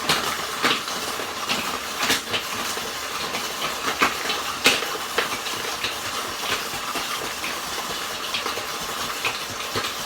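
Countertop blender running on a soup with ice cubes in it: a steady whirring hiss with irregular sharp knocks as the ice chunks hit the jar.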